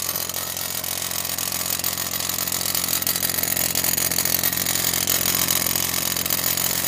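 2006 BMW X3 3.0i's straight-six engine idling, with a steady rattle from the exhaust at the muffler. The owner suspects the exhaust butterfly valve is stuck and not moving.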